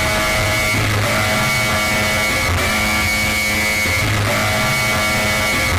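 Loud music with guitar and held high notes, running steadily without a break.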